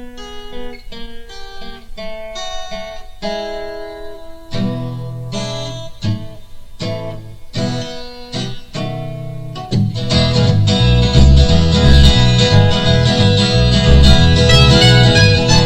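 Acoustic country-blues instrumental intro: a picked acoustic guitar playing separate notes alone, joined about ten seconds in by bass and more strings, and the music gets much louder.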